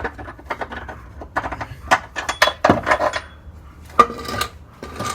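Metal tools and parts clinking and clanking, a run of sharp knocks and rattles with one louder ringing clank about four seconds in, while the rear control arms are being unbolted.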